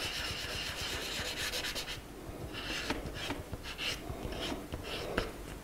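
A coloured crayon scratching across paper as flower petals are coloured in: a steady rubbing for about two seconds, then short separate strokes.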